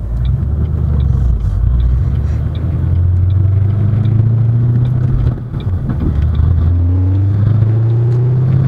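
Turbocharged Ford 4.6-litre three-valve V8 accelerating hard at wide-open throttle, heard from inside the cabin. The engine note climbs steadily, dips briefly about five seconds in at a gear change, then climbs again.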